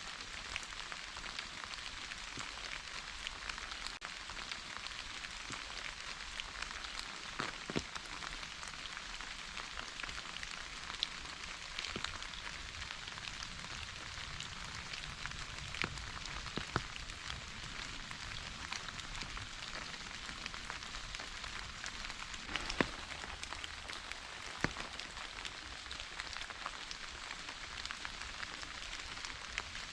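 Steady rainfall, a constant hiss of rain with scattered individual drops ticking sharply on a surface.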